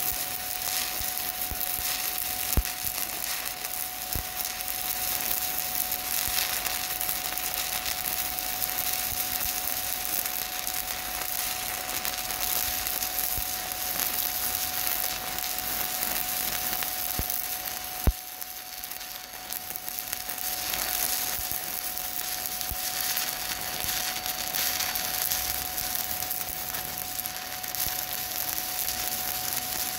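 Stick-welding arc burning a 7018 electrode, crackling and sizzling steadily, with a few sharp pops, the loudest about 18 seconds in. A faint steady tone sits underneath.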